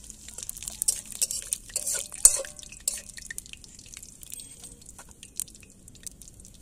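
Dry red chillies and cumin seeds sizzling and popping in hot mustard oil in a metal kadai, with a metal spatula scraping and knocking against the pan as they are stirred. The pops are thickest over the first three seconds and then thin out.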